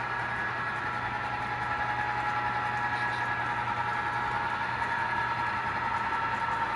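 Model train of eight locomotives pulling about thirty coal cars, running steadily through track switches and an S-curve. It makes an even hum with a few steady high whining tones.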